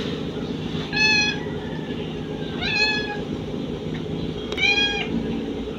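Three short, high-pitched animal cries, each about half a second long and roughly two seconds apart, over a steady low hum.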